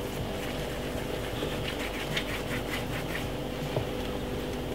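Hands rolling soft dumpling dough between the palms, a run of quick faint rubbing strokes, then a soft knock as a dumpling is dropped into the pot of soup, over a steady low hum.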